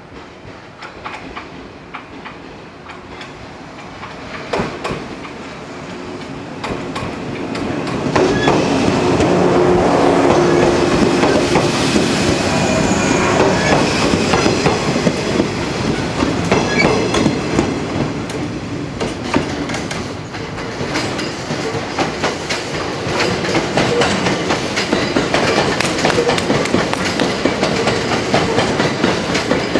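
A 115-series electric multiple unit passes close by, its wheels clattering over the rail joints. It builds to a loud pass at about eight seconds. From about twenty seconds in, a 227-series electric train passes on the neighbouring track with more wheel clatter.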